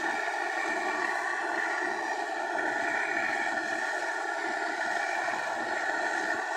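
Welding arc on aluminum, a steady buzz with a few even tones that holds without a break.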